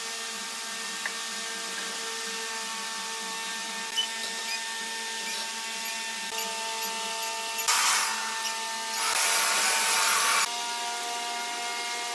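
Wood lathe's electric motor running with a steady mechanical hum. About eight seconds in, two louder bursts of hissing noise break in, the second lasting about a second and a half.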